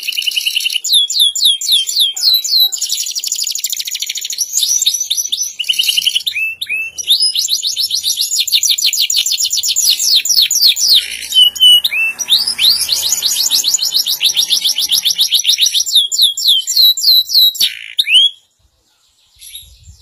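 Domestic canary singing long, fast trilling phrases of rapidly repeated high notes, with short breaks between phrases. It falls silent near the end.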